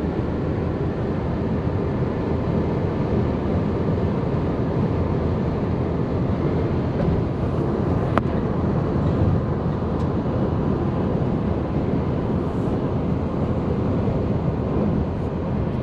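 Steady road and engine noise inside a car driving at speed, with a single sharp click about halfway through.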